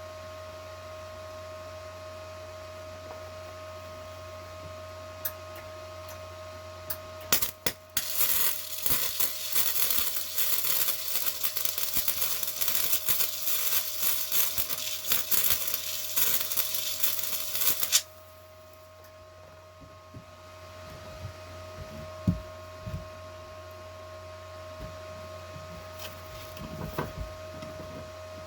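An electric welding arc crackles steadily for about ten seconds, starting after a few sharp pops and cutting off suddenly, as a weld is laid on a steel mower-deck gauge wheel arm. The welder's steady hum is heard before and after the arc.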